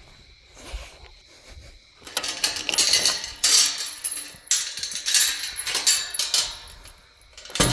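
Metal clinking and rattling in several loud surges, starting about two seconds in and dying away shortly before the end.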